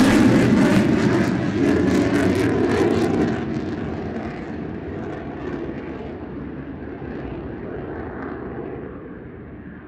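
F-35A fighter's F135 jet engine running at takeoff power: a loud roar with crackle for about three seconds, then fading steadily as the high end dies away.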